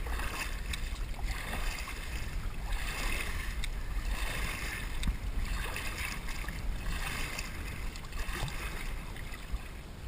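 Water swishing and lapping around a kayak in regular swells about every second and a half, over a low wind rumble, muffled by a waterproof camera housing. A few light knocks come through.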